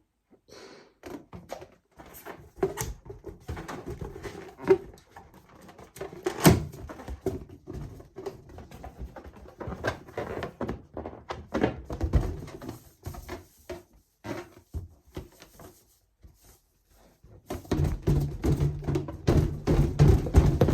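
Rubber balloons being handled: an irregular string of knocks, thumps and rubbery squeaks, with one sharper, louder snap about six and a half seconds in. After a short lull near the end, a denser, louder rubbing sound sets in.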